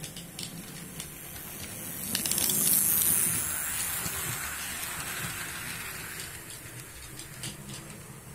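Model passenger train, a steam-locomotive model pulling coaches, running past close by on the layout's track. Its wheels rumble and click on the rails, growing louder about two seconds in and fading away over the next few seconds.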